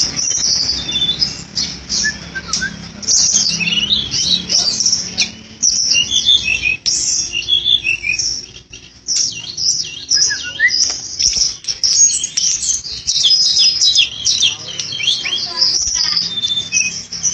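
Tledekan gunung flycatcher singing busily: a rapid run of high, thin chirps and twittering phrases, broken by a short lull about halfway through, with a few brief held whistled notes later on.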